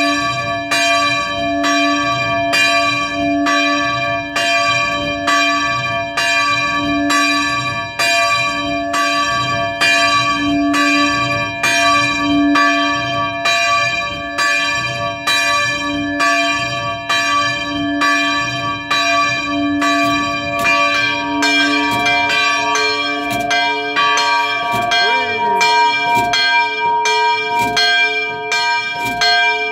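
Swinging church bells pealing for the evening prayer bell (Gebetsläuten), with several bells striking in steady, overlapping strokes and long ringing overtones. About 21 seconds in, the deepest bell stops and the ringing carries on with the higher bells.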